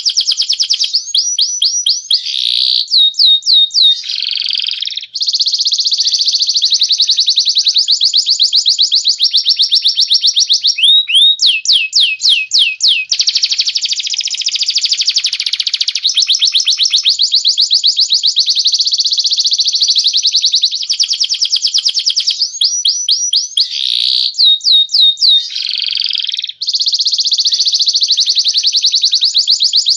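Recorded song of caged songbirds, a cililin and a canary: long, fast rolling trills of evenly repeated high notes. Three times the trills break into short runs of quick rising whistles, and the same phrase returns about every 21 seconds, as in a looped training track.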